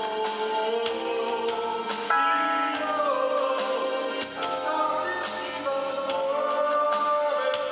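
Pop song with wordless singing over a backing track with a steady drum beat and sustained melody lines.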